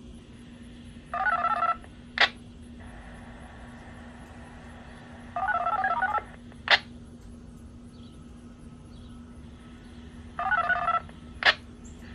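Three short, rapid sequences of DTMF tone pairs, like siren activation control codes, about four and a half seconds apart. Each is followed by a sharp click about half a second later. A faint steady hum runs underneath.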